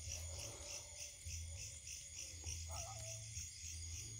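Faint, steady chorus of forest insects, pulsing several times a second. A faint wavering tone comes twice.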